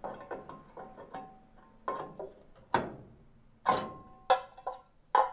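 Steel VW Bus lower A-post repair panel clinking and knocking against the rusted body as it is handled: a handful of sharp knocks, several of them ringing briefly with the same metallic tone.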